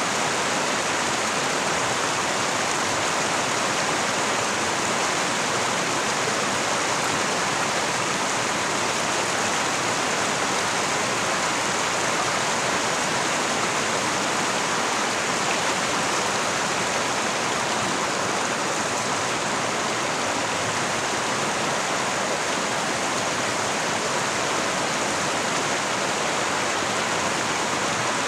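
Mountain stream rushing and splashing over boulders in a steady, even rush of white water.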